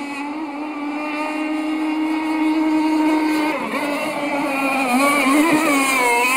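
CC Racing 260 two-stroke gas engine with a steel tuned pipe, driving a radio-controlled Aeromarine Conquest catamaran at full speed: a steady high-pitched engine whine that wavers in pitch from about three and a half seconds in and dips as the boat passes close near the end, growing louder as it approaches.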